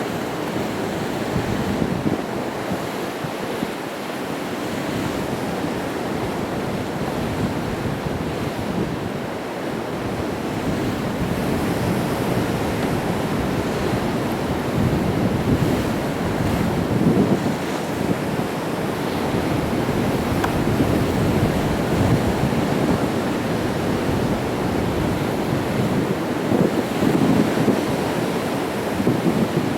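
Sea waves breaking and washing against rocks in a continuous surging wash that swells and ebbs.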